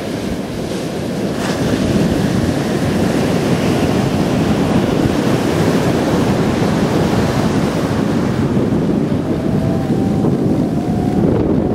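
Heavy shorebreak surf breaking and rushing, with wind buffeting the microphone: a steady, dense wash of noise.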